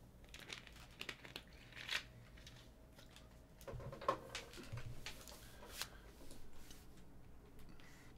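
Trading cards and their packaging being handled: scattered clicks and taps with crinkling and rustling, busiest from about three and a half to six seconds in.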